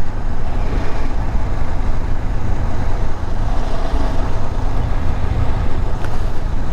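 Motorcycle riding along a road, heard from the rider's microphone: a steady low rumble of wind buffeting mixed with the KTM 250 Adventure's engine running.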